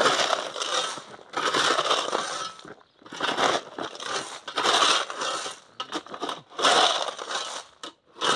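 A shovel scraping into loose rounded gravel stones and tipping them out, a crunching, rattling stroke about every second and a half, six times.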